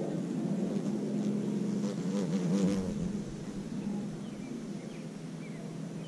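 Cicada killer wasp buzzing in flight, a low drone that wavers in pitch. It is loudest for the first three seconds, then fades as the wasp moves off.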